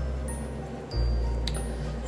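Background music: a deep bass note that moves to a new pitch about every second and a quarter, with short high tones fading above it. A single sharp click about one and a half seconds in.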